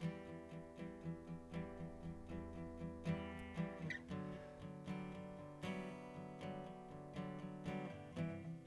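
Background music: acoustic guitar strumming steadily, with regular plucked strokes.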